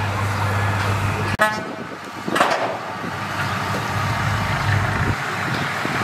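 Heavy diesel engine of earthmoving machinery running with a steady low hum, and a short horn toot about one and a half seconds in.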